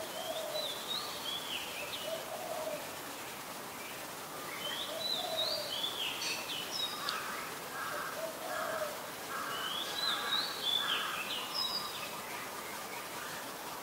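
Songbird calls in three bursts of high, jumping whistled and chattering notes. Low short notes repeat every two to three seconds underneath. A steady hiss of rain runs throughout.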